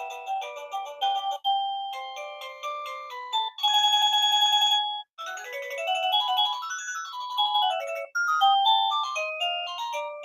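Plug-in dog doorbell receiver playing a string of electronic chime melodies through its small speaker, about five different tunes, each cut off after a second or three as the next is selected. One is a held ringing chord; another runs up and then down a scale.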